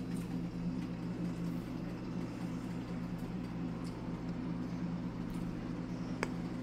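Steady electric hum from a kitchen range-hood fan. Over it come a few faint clinks and one sharp click near the end as tongs drop cooked orange peels into a bowl.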